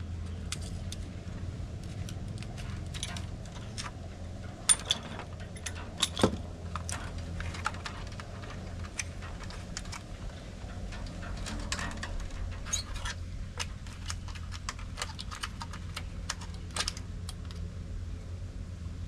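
Thin bamboo strips clicking, rattling and scraping against a woven bamboo basket as it is laced by hand: many light, irregular clicks over a steady low hum.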